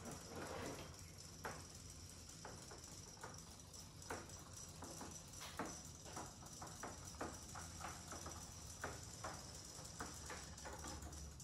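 Battery-powered robotic toy fish swimming in a tub of water: faint, irregular small ticks and splashes as their tails flick at the water.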